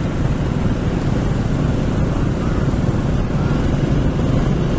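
Motor scooter engine running steadily at road speed, with wind rushing over the microphone of a moving vehicle.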